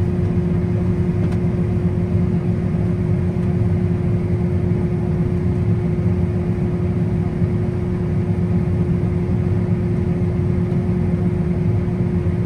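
Combine harvester running steadily, a constant engine-and-machinery drone with a steady hum, heard from inside the cab while it unloads wheat into a grain cart on the go.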